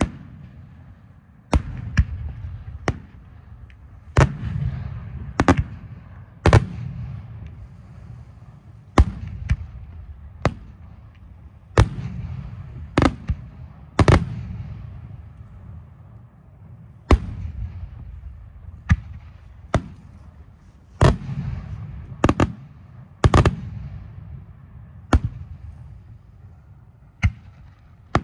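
Aerial firework shells bursting one after another, a sharp report every second or two, each trailed by a low rumble.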